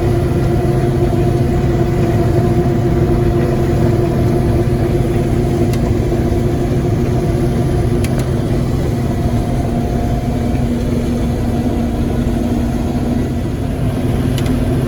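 A combine harvester running steadily while harvesting soybeans, heard from inside the cab: a continuous engine and machinery drone. Its tone changes slightly about ten seconds in.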